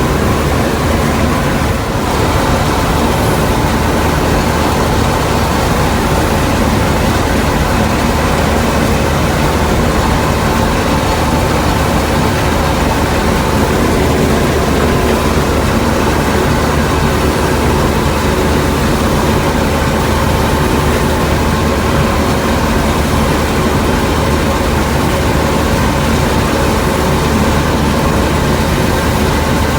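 Combine harvester running steadily while harvesting soybeans: a loud, even engine and machinery drone that holds constant throughout.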